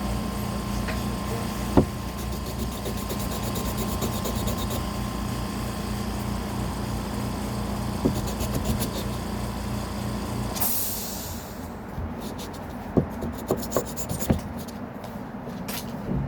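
Sandpaper rubbing on small wooden pieces, with a steady background hum that cuts off suddenly about ten seconds in. A few light knocks of wood being handled follow near the end.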